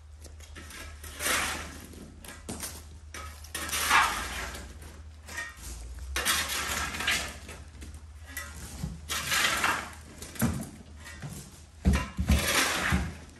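Kitchen clatter of pots, dishes and utensils being handled: irregular scraping and clinking bursts, with a few sharp knocks near the end.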